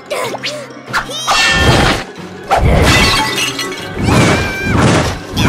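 Cartoon fight sound effects: a string of loud crashes with glass shattering, over background music.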